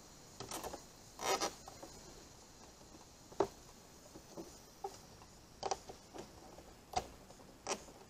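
Red PEX tubing being pressed and shifted by hand against a painted plywood panel: about half a dozen scattered soft knocks and rustles, the loudest a short rustle about a second in.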